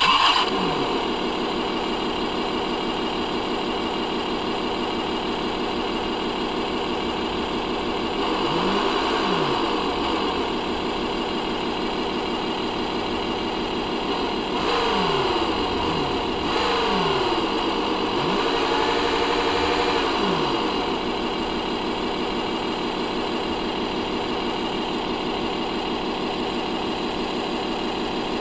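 RC model sound module playing a simulated engine through its small speaker. The engine starts abruptly, then idles steadily. It revs up and back down several times in the middle, with one longer rev held near the top, and then settles back to a steady idle.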